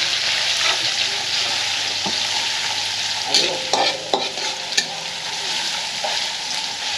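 Food sizzling in hot oil in a pan, a steady frying hiss with a few light clicks about halfway through.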